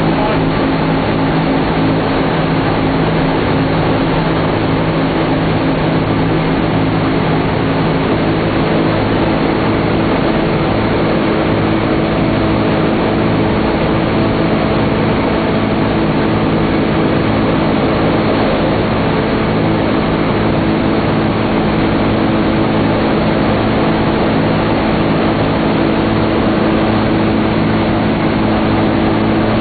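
Steady drone of a B-17 Flying Fortress's four Wright R-1820 Cyclone radial engines in cruise flight, heard from inside the fuselage. It is an even, unbroken sound with several low engine tones over a rushing noise.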